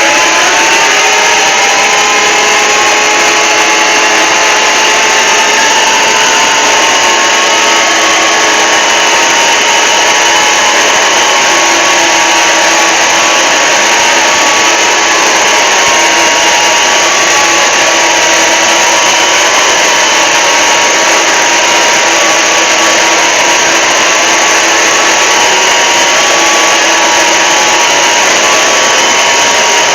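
Fan-made emergency alert (EAS) alarm, layered and amplified into heavy distortion: a loud, harsh, unbroken noise with several sustained alarm tones running through it, a few of them gliding up and settling into pitch just as it begins.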